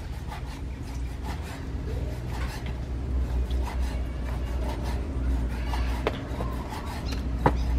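Steel cleaver chopping raw pork on a wooden chopping board: irregular knocks of the blade striking the board, the loudest near the end. A steady low rumble runs underneath.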